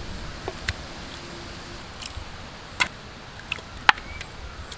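A spoon clicking and tapping against a steel vessel and a clay pot as marinated chicken is scooped out and dropped in: a few short, scattered taps, the loudest about four seconds in.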